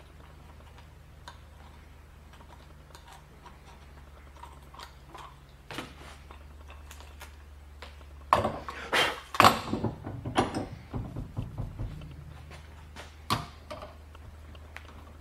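Hand tools clicking and scraping on the metal retaining ring of a battery master switch as it is worked loose. A louder stretch of metal scraping and clatter comes about eight seconds in and lasts some three seconds, followed by a single sharp click.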